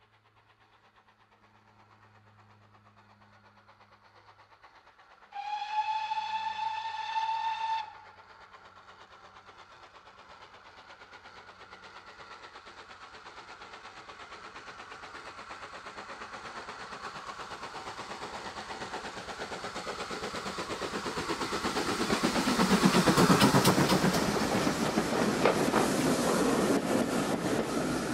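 Steam locomotive whistle sounds once for about two seconds. Then the train approaches and passes close by, its rhythmic clatter of exhaust and wheels growing steadily louder to a peak about twenty-three seconds in.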